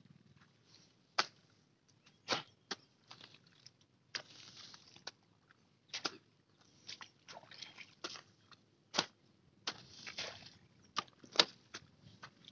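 A long-handled hoe chopping into a grassy mud field bund. Sharp chops come at uneven intervals, a dozen or so, with scraping and rustling of cut grass and soil between strikes.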